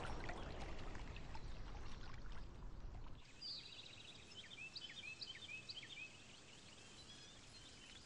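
Soft, faint running-water noise for about three seconds, then it cuts off abruptly to quieter outdoor ambience with small songbirds giving short chirps and trills.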